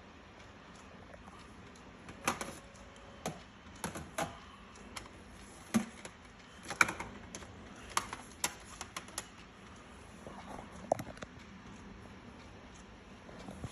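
About a dozen light clicks and taps at irregular intervals, as of small objects being handled, over faint background noise.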